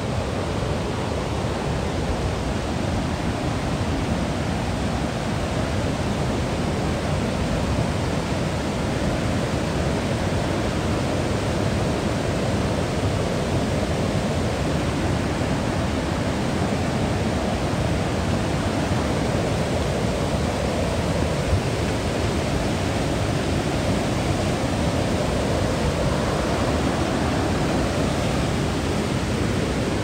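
River water rushing over rapids and falls: a steady, even rush.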